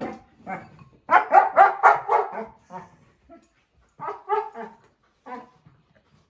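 Four-month-old German shepherd puppy giving runs of short, pitched barks: a few at the start, a quick string of about six about a second in, then a few more around four seconds and a last one near five seconds.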